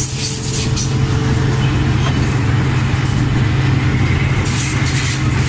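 A ZCU-20 diesel-electric locomotive's engine running loud and steady at close range, a deep even hum with no clear rise in pitch. Short bursts of hiss come through near the start and again shortly before the end.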